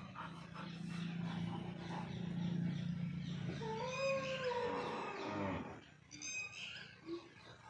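Animal vocal sounds: a low steady growl for the first few seconds, then a long pitched cry that rises and falls, and a few brief high squeaks near the end.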